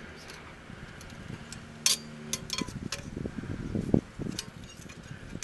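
Small metallic clicks and clinks from a hand tool working on the exposed drum-brake shoes and spring hardware, clustered about two to three seconds in, with a louder dull knock near four seconds.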